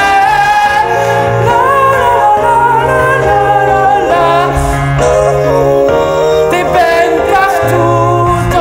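A man singing long, drawn-out notes of a love song over electric keyboard chords.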